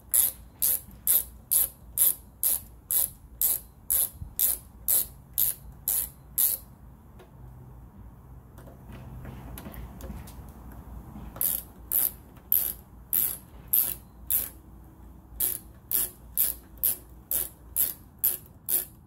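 Ratchet driver with a T25 Torx bit clicking steadily, about three clicks a second, while windscreen screws are backed out. The clicking stops for about five seconds a third of the way in, then resumes with a short break near the end.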